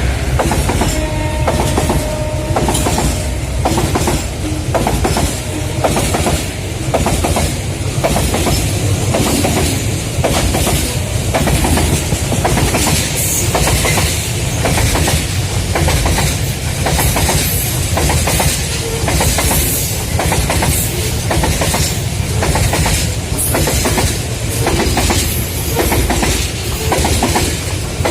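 A long loaded coal freight train of some 60 wagons rolling past, its wheels clicking steadily over the rail joints over a constant low rumble.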